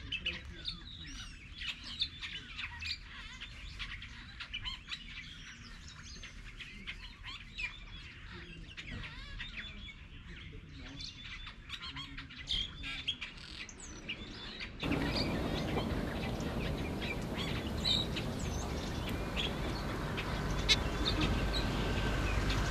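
White-backed vultures squabbling over a carcass: a dense run of short squealing and chirping calls. About fifteen seconds in, the sound cuts to a steady rushing noise with only a few calls over it.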